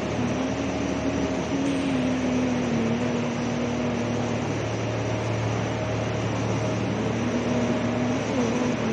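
Feed pellet mill plant machinery running: a steady mechanical hum and whirr from the electric-motor-driven machines, with a couple of tones that drift slightly in pitch.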